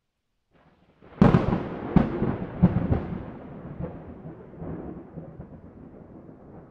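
Thunder: a sharp crack about a second in, three more cracks over the next two seconds, then a long rolling rumble that slowly fades.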